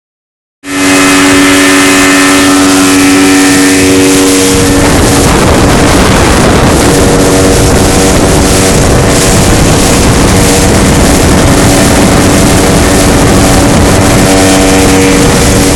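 A 70 hp outboard motor running hard and steady as the boat speeds along, with the rush of water and wind on the microphone. The engine's note blurs for a few seconds about four seconds in, then steadies again.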